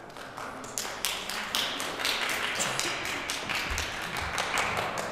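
Small audience applauding, the individual claps distinct. The clapping builds up about a second in and carries on steadily.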